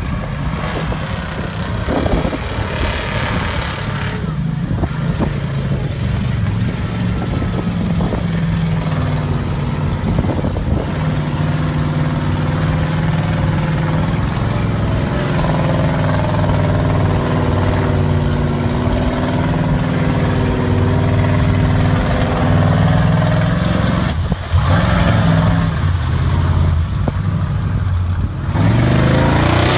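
Lifted Toyota pickup's engine running hard and revving as the truck drives through a mud hole, its pitch rising and falling. Mud and water are churned up by the big tires.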